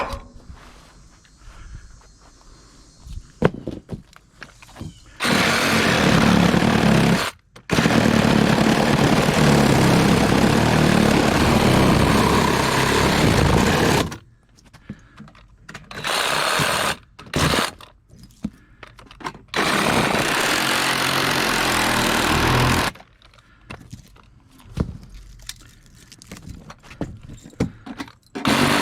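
A loud engine or heavy machine runs in several long stretches that start and stop abruptly, the longest about six seconds. Quieter stretches between them hold scattered knocks and clanks.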